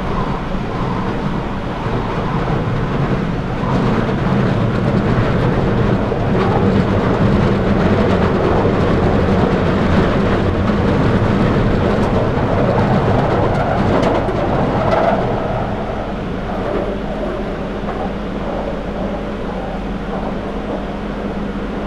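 Interior of a London Underground Victoria line 2009 Stock train running between stations: steady running noise of traction motors and wheels on rail. It grows louder a few seconds in and eases off somewhat past the middle.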